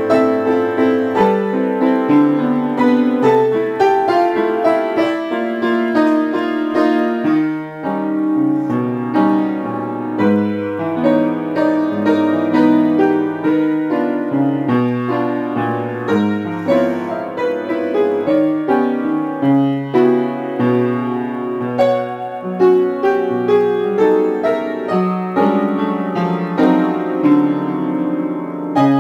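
Piano music: a continuous flow of notes over a moving bass line.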